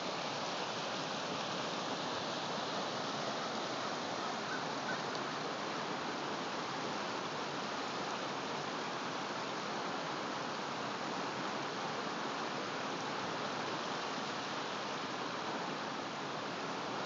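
Fast-moving floodwater rushing steadily across a submerged road.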